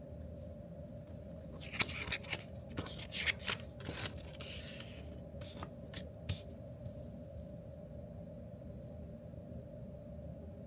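A quick run of short clicks and scrapes with a brief rustle, like small objects being handled, over a steady room hum; it dies away after a few seconds.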